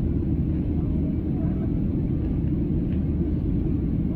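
Steady low rumble of an airliner's cabin in flight, heard from a window seat.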